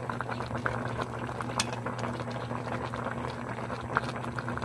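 Vinegar broth bubbling at a simmer in a pot of fish paksiw, a steady crackle of small pops over a low hum.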